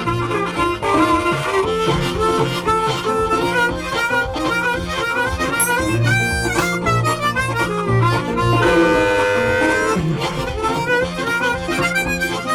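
Background blues music led by harmonica, with a repeating bass line and a long held note about nine seconds in.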